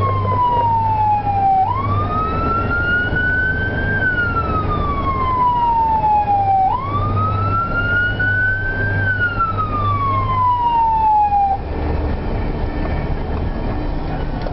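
Emergency vehicle siren on a wail: two slow rise-and-fall cycles of about five seconds each, then it stops abruptly near the end. Under it is a steady drone of engine and road noise.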